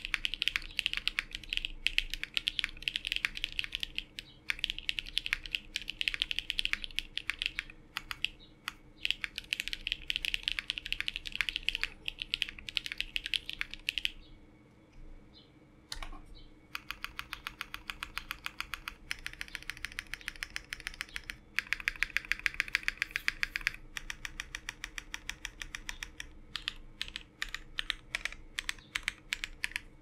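Typing on a custom 60% mechanical keyboard: a 3D-printed, plateless, gasket-mount Inky 60 with lubed Creampaca linear switches (Cream stems in JWK Black housings, TX 75 g springs) and IFK WoB keycaps. Fast continuous typing stops about fourteen seconds in for two seconds, then resumes as rapid even keystrokes that thin out into separate presses near the end.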